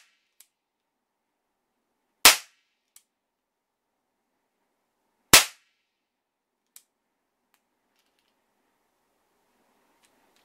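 Hartford (HWS) Type 26 revolver model gun firing caps: two sharp shots about three seconds apart, each followed a moment later by a faint click.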